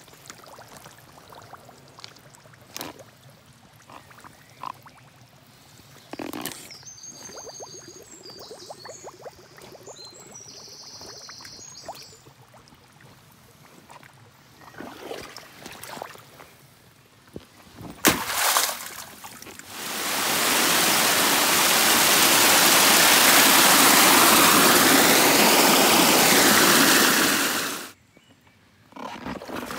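Chest-wader boots stepping through mud and shallow water: scattered soft squelches and splashes. About twenty seconds in, a loud steady rush of water noise runs for about eight seconds and cuts off suddenly.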